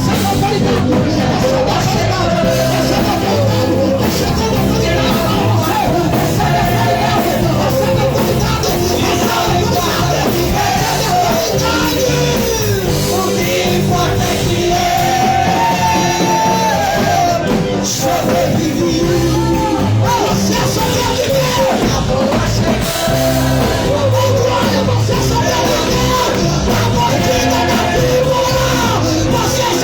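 Loud music with singing voices and some shouting, steady throughout.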